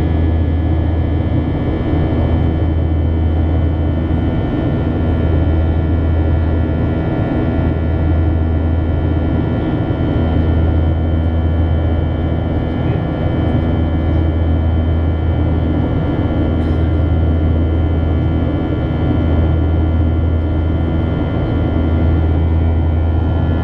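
Steady in-flight cabin drone of a Boeing 737-800 with CFM56-7B engines, heard from a window seat beside the engine: a deep hum with several steady high tones over it.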